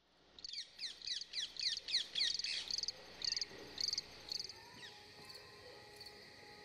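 Rose-ringed parakeets calling: a rapid run of loud, falling screeches, several a second, that stops about four and a half seconds in, leaving only faint short chirps.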